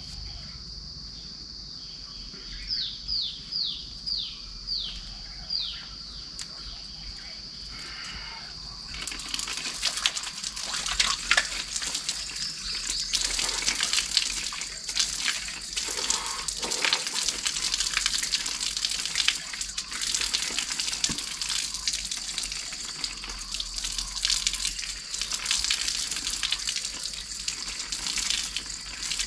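Steady insect buzz with a short run of falling bird notes; then, about nine seconds in, water pouring from a spring-fed pipe spout and splashing onto stone as a man washes at it, which carries on to the end.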